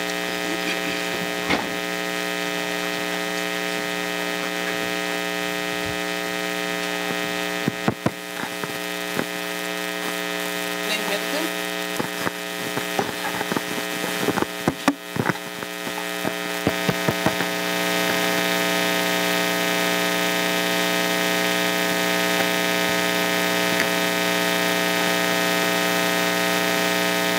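Steady electrical mains hum, a buzz with many evenly spaced overtones, in the meeting's audio feed. Scattered clicks and knocks come through in the middle stretch. About two-thirds of the way through, the hum turns a little louder and fuller.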